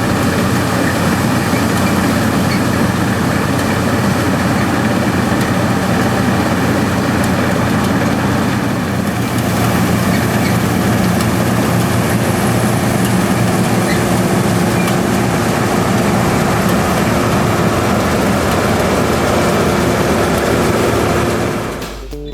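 Diesel engines of harvest machinery running steadily, a combine harvester working with grain-carting tractors; the sound dips away near the end.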